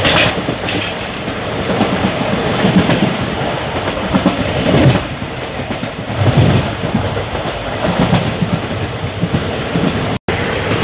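Express passenger train running at speed, heard from the open doorway of a coach: the wheels clatter over the track with irregular low thumps above a steady rushing noise. The sound cuts out briefly near the end.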